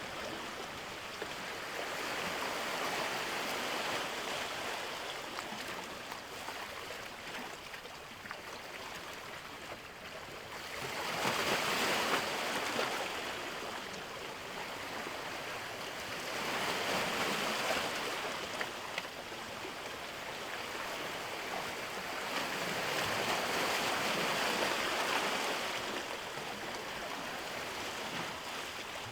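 Ocean waves washing in, a steady hiss of water that swells with a breaking wave about every five or six seconds.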